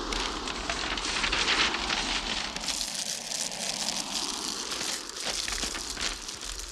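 Sheets of paper rustling, flapping and crumpling in a dense crackle, loudest in the first two or three seconds and then thinning out.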